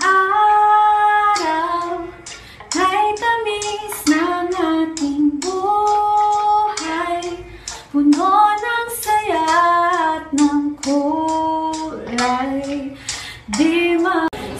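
A woman singing solo, holding long notes that glide between pitches, with no instruments heard under the voice.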